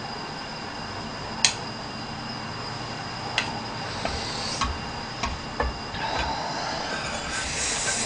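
A metal ladle clinking against a pot and a bowl as broth is served out: several sharp clinks, the loudest about a second and a half in, then a brief spell of noise near the end.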